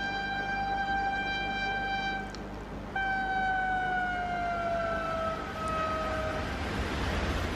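Vande Bharat Express train horn: one long blast, then after a short gap a second long blast, about three seconds in, that falls steadily in pitch as the train sweeps past. The rush of the passing train rises near the end.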